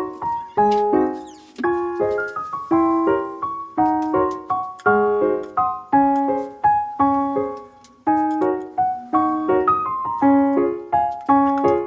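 Background music: a piano playing a rhythmic pattern of repeated notes.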